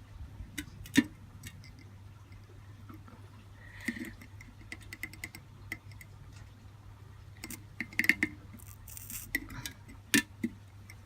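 Irregular light clicks and taps of small metal parts and tools being handled on a workbench during soldering. Two sharper clicks, about a second in and near the end, stand out over a steady low hum.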